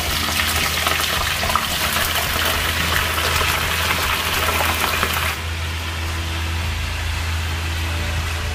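Chicken pieces deep-frying in hot oil in a wok, a dense sizzling crackle throughout. About five seconds in the sizzle loses its bright top end and goes on softer.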